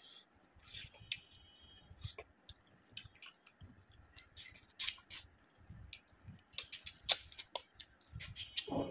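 Wet, sticky clicks and squelches of bare fingers squeezing rice into chicken curry gravy, then mouth smacks as the handful is eaten. A short hum sounds near the end.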